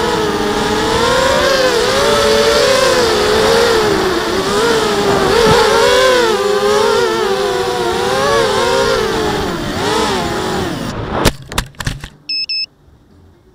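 The motors and propellers of a 250-size FPV racing quadcopter, heard close from its onboard camera, whining with the pitch rising and falling as the throttle changes. About 11 seconds in the whine cuts off suddenly, with a few knocks as the quad comes down in the grass, followed by a short high beep.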